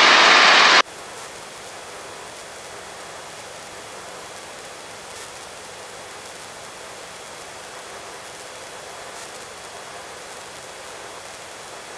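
Steady, even hiss from the helicopter's headset intercom and radio audio feed. A loud burst of static cuts off abruptly about a second in.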